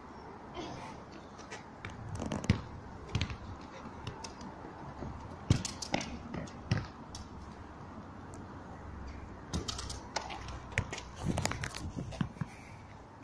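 Scattered knocks and scuffs of a football drill on wet tarmac: a ball being kicked and trainers scuffing as the player turns and shoots, the sharpest knocks about two and a half, five and a half and eleven and a half seconds in.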